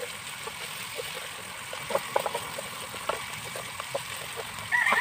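Garlic, ginger and chilies frying in melted margarine in a kawali (wok): a steady sizzle with scattered small crackles and clicks. Near the end a louder, brief pitched call cuts in.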